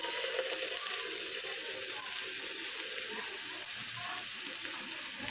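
Chitau pitha batter sizzling in a hot pan under an upturned steel bowl used as a lid, a steady loud hiss after liquid hits the hot pan.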